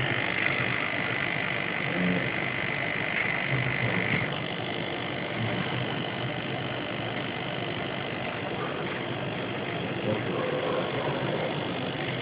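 Small hobby servo motor whining steadily at a high pitch, stopping about four seconds in, over a constant noisy hum.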